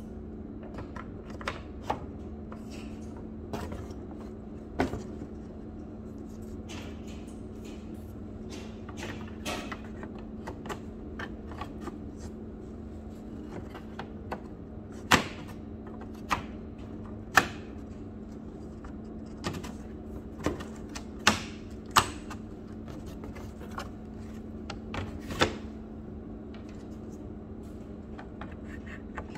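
Wooden flat-pack panels of a rabbit castle being fitted and knocked together by hand: irregular sharp knocks and clicks, a few of them much louder, over a steady low hum.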